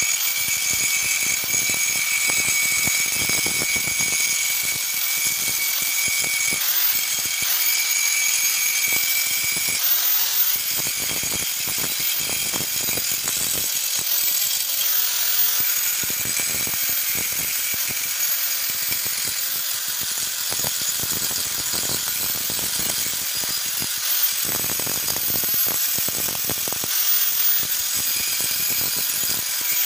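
Electric angle grinder running with a steady high whine, its abrasive disc grinding rust off an iron pipe.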